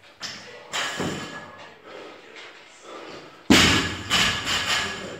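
Loaded barbell with rubber bumper plates dropped onto a floor mat: one hard thud about three and a half seconds in, then a couple of smaller rebound knocks as it settles. Softer knocks and clanks come earlier as the bar is lifted.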